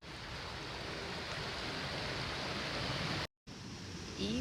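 Steady rushing background noise with no distinct events, broken by a brief dropout about three seconds in.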